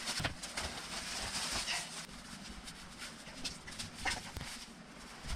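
Rustling of a waterproof Merrell rain jacket and rain trousers as they are pulled on and adjusted, with a few short clicks and knocks of handling.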